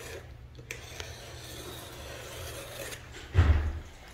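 Handling noise from the hand-held camera as it is moved: rubbing against the mic over a steady low hum, with a short, low thump about three and a half seconds in.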